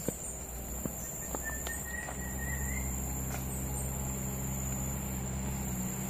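Soft, irregular footsteps on a dirt path under a steady high insect drone, with one faint, short whistled bird call in the first half. A low steady hum comes in about two seconds in.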